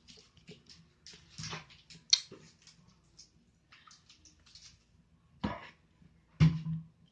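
Glue and gel food colouring being stirred into slime: small wet clicks and squelches, with two louder knocks about a second apart near the end.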